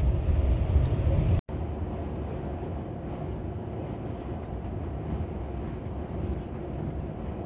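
Lorry driving on the motorway, heard from inside the cab: steady diesel engine drone and road noise. About one and a half seconds in the sound cuts out for an instant and goes on lighter, with less of the deep engine rumble.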